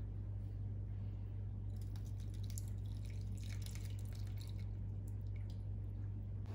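Lemon juice trickling and dripping through a small mesh strainer into a bowl of batter, strained to hold back the seeds; the splashing starts about two seconds in and dies away after about five seconds. A steady low hum runs underneath.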